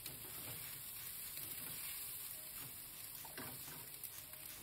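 Cold leftover rice frying on high heat in a stainless steel skillet: a steady, soft sizzle, with a few faint scrapes as a spatula turns the rice through the pan.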